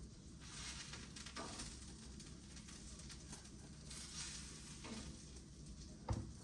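Sausages sizzling faintly in a skillet, with a few light knocks of utensil on pan and a sharper click near the end.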